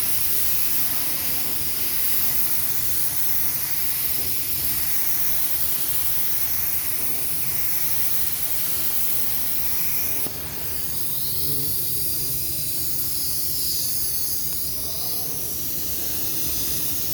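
Automotive paint spray gun hissing steadily as compressed air atomises filler primer onto a car fender. The hiss dips briefly about ten seconds in and then carries on.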